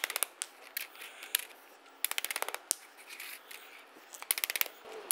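Interlocking Ribtrax plastic floor tiles clicking and rattling as they are laid and fitted together. A few single clicks come first, then two quick runs of rapid clicks, one about two seconds in and one just after four seconds.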